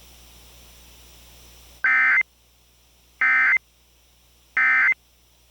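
Emergency Alert System end-of-message (EOM) code: three short, loud bursts of buzzing SAME data tones about a second apart, marking the end of the alert. Faint hiss comes before the first burst.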